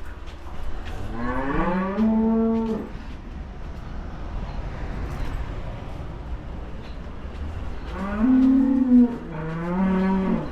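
Dairy cows mooing: one long moo a second or so in, then two more in quick succession near the end, over a steady low hum.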